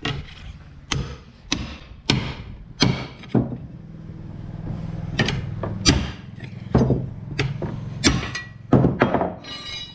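Hammer blows on a tire iron, about a dozen sharp metallic strikes at an uneven pace of roughly one every half second to a second, over a steady low hum. This is work to break a tractor tyre's bead loose from the rim.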